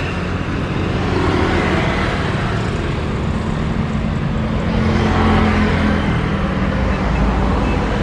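Boeing 787-8 Dreamliner's jet engines running loud and steady as the airliner rolls down the runway after touchdown: a deep rumble under a broad rushing noise.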